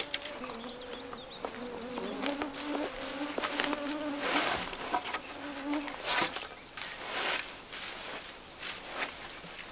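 A flying insect buzzing close by, its hum wavering in pitch, dying away about six seconds in. Short scuffs and rustles in the forest undergrowth come and go, the loudest about four and six seconds in.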